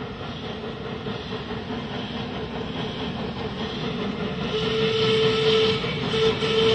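Steam freight locomotive and train running, the noise growing louder as it comes closer. About two-thirds in, the locomotive's whistle starts: one long steady note with a short break.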